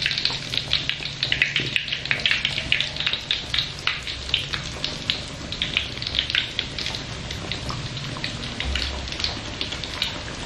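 Chicken nuggets deep-frying in hot oil in an aluminium wok: a dense, continuous crackling and spitting of the oil, thinning out somewhat after about seven seconds.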